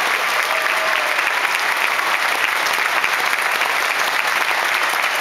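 Large theatre audience applauding steadily, a dense sustained clatter of many hands clapping, for the dancers' curtain-call bows at the end of the ballet.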